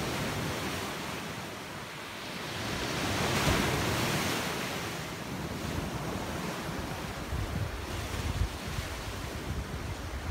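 Small waves breaking and washing up a shingle beach, one surge swelling to its loudest about three and a half seconds in, with wind buffeting the microphone in the second half.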